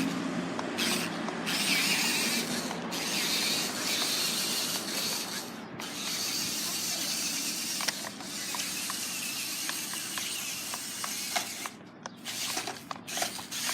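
Four-wheel-drive RC car running and driving over dirt, its motor and drivetrain making a noisy mechanical whir that swells and eases in bursts, with scattered clicks near the end.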